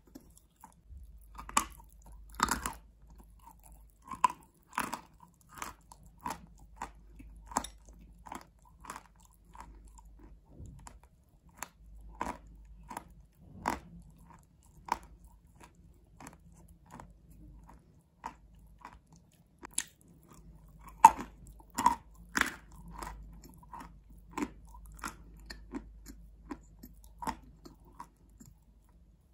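Close-up chewing of edible chalk: a steady run of short, crisp crunches about one a second, with louder bites about two seconds in and again about two-thirds of the way through.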